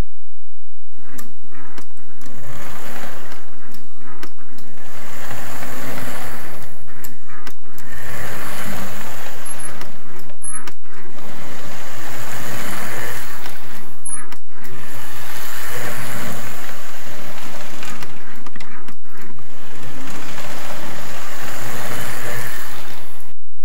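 1948 American Flyer No. 350 Royal Blue S-gauge locomotive and its cars running around the track: a loud, steady motor hum and wheel rattle that briefly dips now and then, the engine running again after service.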